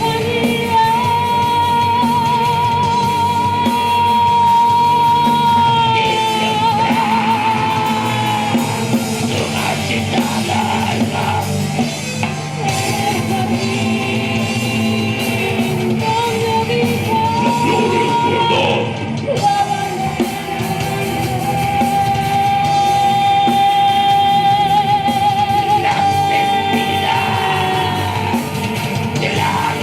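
Rock band playing live: drum kit and guitars under long held notes that waver in pitch, one for several seconds near the start and another from about twenty seconds in.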